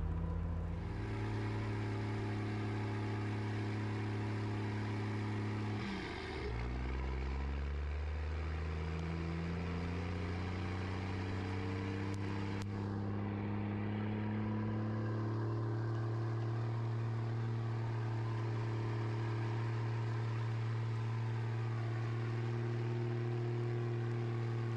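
12-valve Cummins inline-six turbo diesel running under load as the plow truck drives. About six seconds in, the engine note breaks and drops with a gear change, then climbs steadily for several seconds and holds steady.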